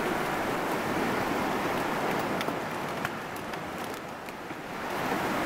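Fast, turbulent river rapids rushing steadily, with a few faint clicks near the middle.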